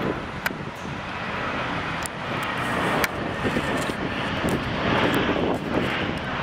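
Jet airliner engines heard as an aircraft passes, a steady rushing noise that swells slightly past the middle, with a few sharp clicks.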